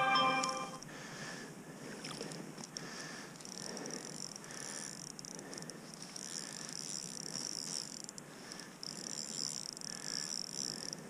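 Small spinning reel on an ice-fishing rod being cranked, winding in line with a soft, evenly pulsing whirr at each turn of the handle. A brief pitched hum opens it.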